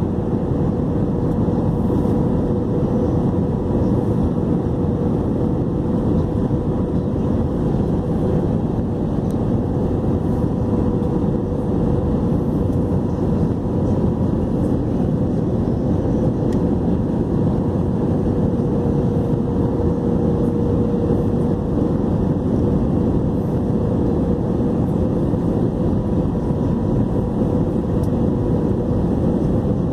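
Airbus A321 jet engines and rushing air, a loud, steady roar with a constant hum that holds without change.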